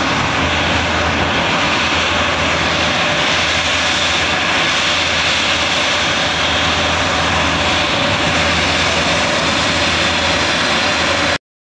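PD-14 turbofan engines of an MC-21-310 airliner running as it taxis: a steady, loud jet rush with a faint even whine. The sound cuts off abruptly near the end.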